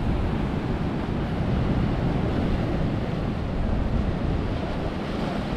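Ocean surf washing steadily against the shoreline rocks, with wind rumbling on the microphone.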